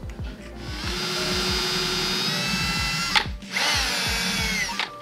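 Cordless drill driving a 15/64-inch bit through a plastic fuel pump flange: a steady whine for about two seconds, a short pause, then a second, shorter run whose pitch dips as the bit bites and then recovers.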